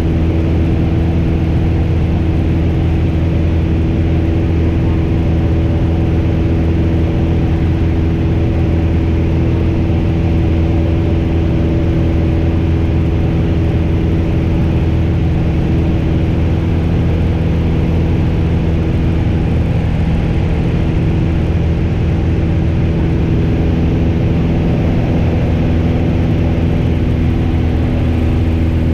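Piper PA-28's piston engine and propeller droning steadily, heard inside the cockpit.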